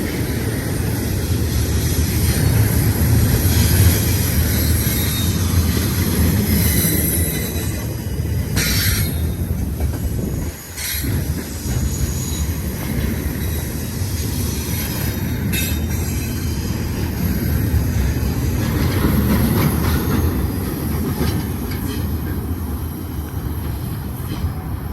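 Intermodal freight cars rolling past: a steady, loud rumble of steel wheels on rail, with high-pitched wheel squeal coming and going as the train takes the curve. The level dips briefly about ten seconds in.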